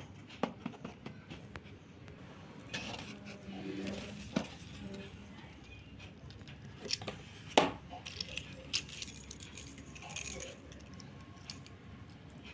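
Items and packaging from a parcel being handled: scattered light clicks and clinks, with a few short spells of rustling.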